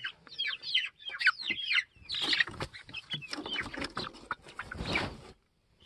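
A flock of backyard chickens clucking and giving many short, high, falling calls as they crowd at the coop door at roosting time, with scattered small clicks and two brief stretches of rustling.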